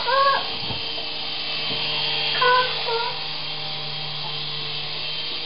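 Syma S108G toy coaxial RC helicopter's small electric motors and rotors running in a steady whirr while it flies. A small child gives a few short, high-pitched calls right at the start and again about halfway through.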